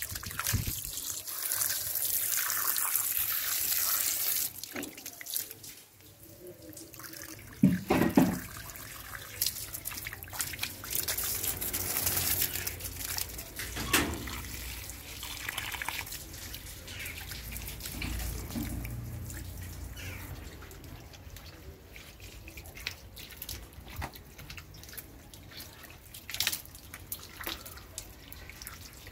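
Water from a garden hose splashing and running over wet concrete steps, with drips and trickles. The spray is loudest in the first few seconds, then quieter and uneven with scattered splashes.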